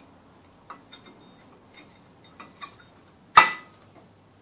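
Light metallic clicks and taps as new brake pads are fitted into the caliper bracket, with one sharp, ringing metal clink a little over three seconds in.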